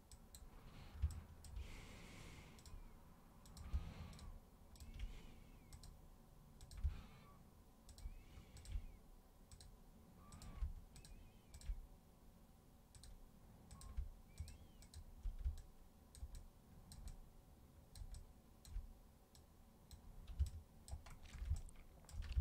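Irregular computer mouse clicks and keyboard taps, a few of them carrying a soft low knock.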